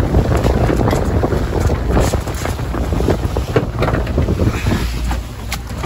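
Wind noise on the microphone over the steady low drone of a small boat's outboard motor and the rush of its wake, with short splashes and knocks scattered throughout.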